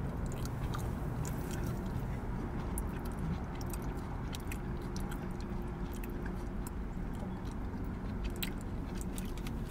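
Close-up eating: chewing and biting food, with many small crunches and mouth clicks over a steady low hum.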